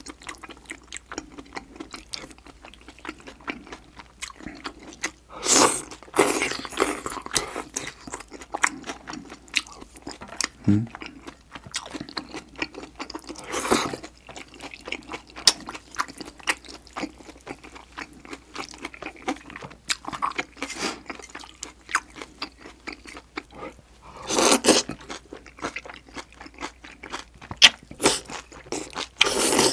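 Chewing and slurping of spicy beef-intestine hot pot with noodles: steady wet mouth sounds and small clicks, broken by a few louder slurps of noodles, about five seconds in, midway and near the end.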